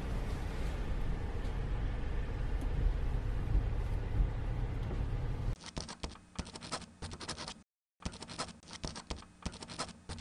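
A low outdoor rumble, then, about halfway through, a pen scratching on paper in quick, irregular strokes, with brief stretches of dead silence between bursts of writing.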